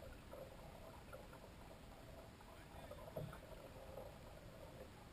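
Near silence: faint water lapping against the wooden hull of a small hydroplane sitting on the lake with its engine off, with one light knock about three seconds in.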